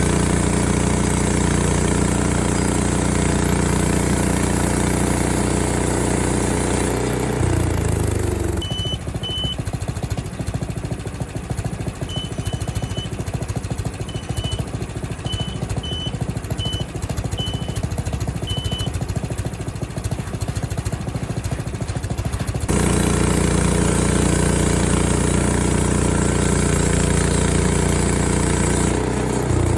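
Frontier OS23 sawmill's gasoline engine running steadily, then winding down about seven seconds in. A rougher, noisier stretch follows, with a row of short high beeps. The engine sound comes back about 23 seconds in and winds down again near the end.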